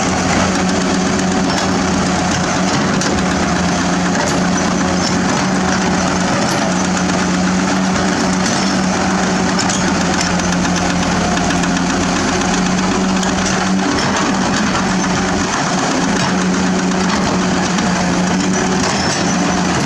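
Caterpillar 336D L excavator's diesel engine running steadily while the machine digs, with a strong steady hum that weakens briefly about two-thirds of the way through.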